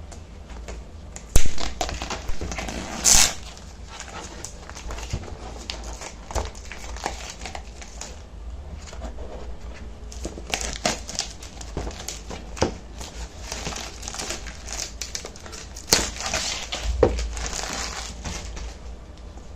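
Headphone retail packaging being handled and opened: rustling and crinkling with scattered clicks and knocks, a loud sharp knock about a second in and a loud rustling burst a couple of seconds later.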